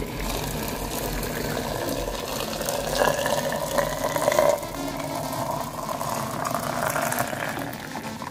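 Boiling water pouring into a glass jar packed with red bell peppers, filling it, with the pour louder for a moment about three seconds in.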